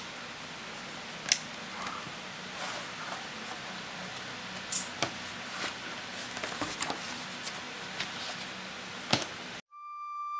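Steady room hiss with scattered light clicks and taps, the sharpest about a second in and again near the end, cut off sharply just before a flute melody starts.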